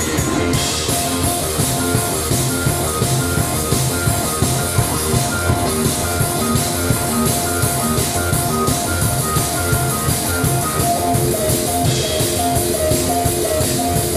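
Instrumental electro-punk band playing: drum kit and electronic pads keep a fast, even beat under bass and a short repeating high riff. Cymbals come in about half a second in.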